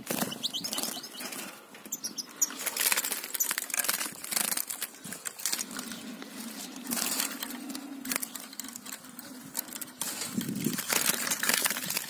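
Small finches' wings fluttering and flapping in irregular bursts of rustling, with a few faint high chirps near the start.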